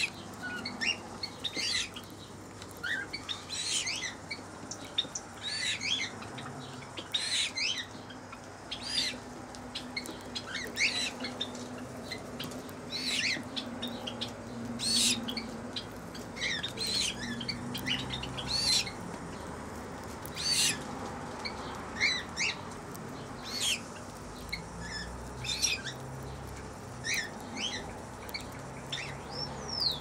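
Small aviary birds chirping: many short, high calls scattered through, some close and some further off.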